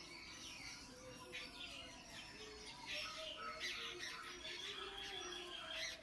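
Several birds chirping and calling over one another in quick, overlapping short notes, with one high note held steady for about a second and a half near the end.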